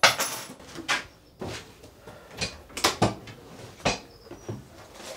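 A run of sharp knocks and clunks from objects being handled and set down on a desk, about seven or eight at irregular intervals.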